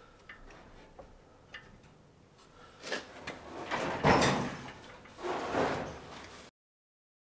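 A steel car muffler handled and shifted into place in a golf cart's metal frame: a few light clicks, then three scraping, rubbing bursts as it is slid and settled, the loudest about four seconds in. The sound cuts off suddenly near the end.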